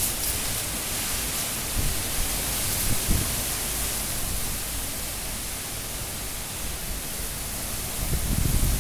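Cyclone-force wind rushing steadily, with low buffeting gusts on the phone's microphone, one near the start and another building near the end.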